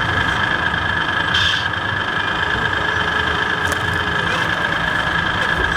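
Radio-controlled scale model trucks running: a steady engine-like hum with a constant high whine, and a short hiss about a second and a half in.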